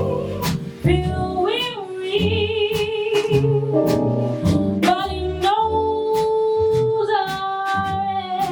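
Small jazz ensemble playing a slow ballad: a lead melody of long held notes with vibrato over bass, piano and drums, with regular cymbal strokes.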